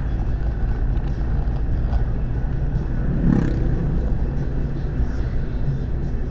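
Steady low rumble of road, wind and engine noise from a moving vehicle, heard from a camera mounted on it. A brief louder swell comes about three seconds in.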